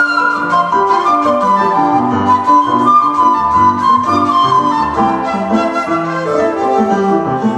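Seven-hole 1.6-shaku shakuhachi playing a sustained melody with sliding pitch bends, over a flowing piano accompaniment of lower notes.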